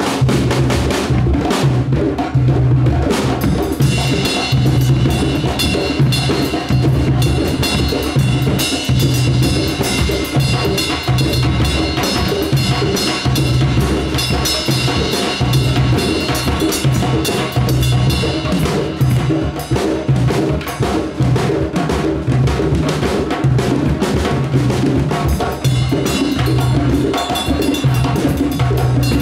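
Candombe drumming: an ensemble of Uruguayan tambores, each struck with one bare hand and one stick, playing interlocking rhythms together with a drum kit. A cymbal rings over the drums from about four seconds in until about nineteen seconds, and again near the end.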